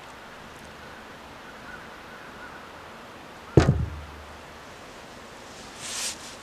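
A plastic wine glass knocked off a cat's head lands on a towelled table: one sharp knock with a brief hollow ring that sinks in pitch, about three and a half seconds in. A short rustling hiss follows near the end.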